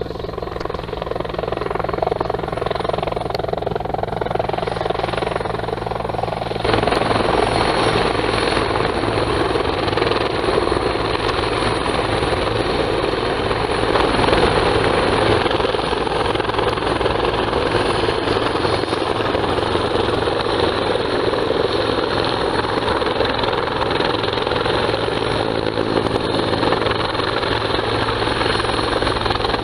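Fire-department rescue helicopter hovering close: steady rotor chop and turbine noise. It jumps abruptly louder about seven seconds in and stays loud.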